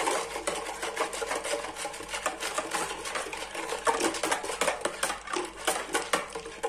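Wire whisk beating water with dissolved sugar, yeast and salt in a plastic bowl: fast, even strokes of clicking and sloshing.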